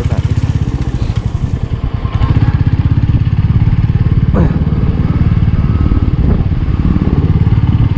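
Motorcycle engine running on the move, its firing heard as a fast, even pulse; it gets louder about two seconds in.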